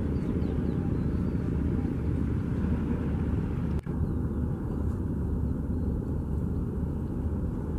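Steady low engine rumble of a river passenger launch underway. It breaks off for an instant about four seconds in, then goes on.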